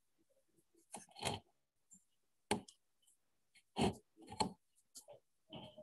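Faint handling noise: about half a dozen irregular clicks and knocks as hands and the camera move around a plastic tub holding sea urchins in water.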